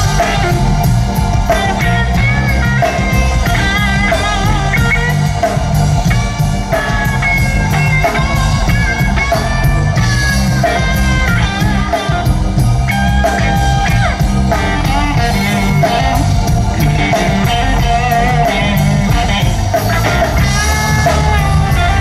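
Live blues-rock band playing: an electric guitar plays a lead solo with bent notes over bass guitar and drums.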